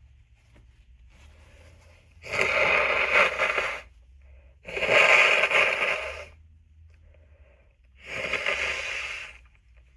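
A person blowing their nose three times in a row, each blow a loud, noisy blast lasting about a second and a half.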